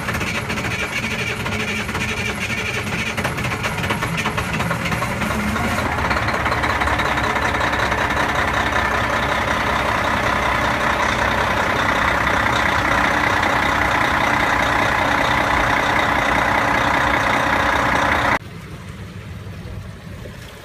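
Detroit Diesel Series 60 marine diesel engines running steadily in the engine room after the exhaust risers were replaced, growing louder and harsher about six seconds in. Near the end the sound cuts to a quieter, duller engine hum.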